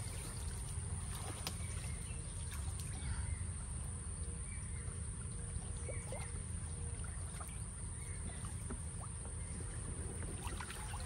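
Pond water sloshing and lapping around people wading waist-deep and moving a bamboo-framed scoop net through it, over a steady low rumble with a few scattered small ticks.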